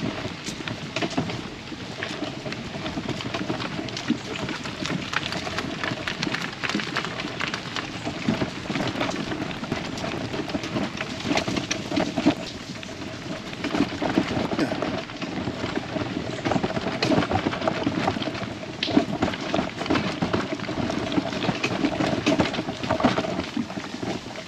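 Loaded fishing tackle trolley being wheeled along a rough path, its wheels and frame rattling and clattering with a dense run of small knocks. The sound is picked up by a camera mounted on the trolley itself.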